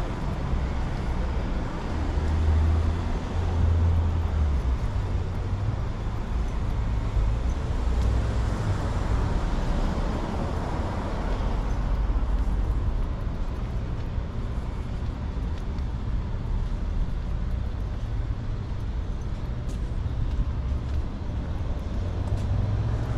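Street ambience: a steady low rumble of road traffic with a constant background hiss.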